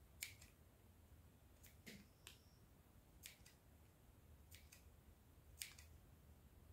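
Near silence broken by a handful of faint, separate clicks: small scissors snipping little notches into the edge of an EVA foam leaf.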